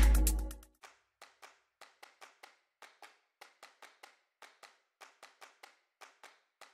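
Electronic intro music fading out within the first second, then a faint run of soft, short ticks, about three or four a second.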